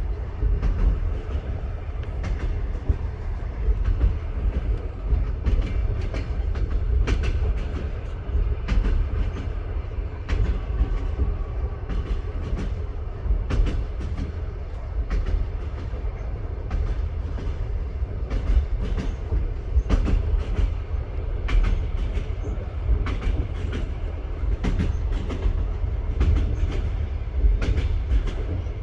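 Train running over jointed track: a steady low rumble with incessant knocking of the wheels over the rail joints, coming irregularly throughout.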